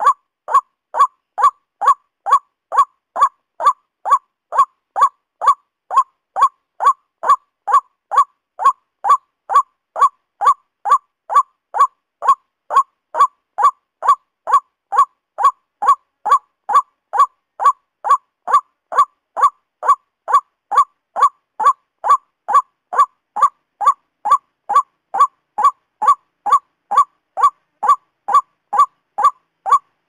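Male white-breasted waterhen (ruak-ruak) calling: a short note centred near 1 kHz, repeated at an even pace of about one and a half calls a second without a break.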